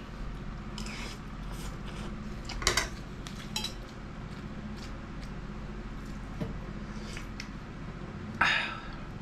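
Metal spoon and fork clinking and scraping against a plate and a stainless steel bowl during a meal: a few scattered clinks, the loudest about three seconds in and near the end, over a steady low hum.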